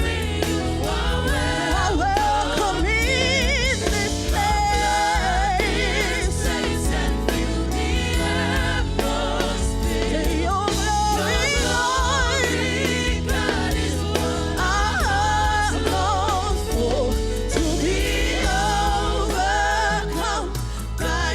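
Live gospel worship music: a lead singer and backing choir singing over a band with a steady bass, sustained wavering sung notes throughout.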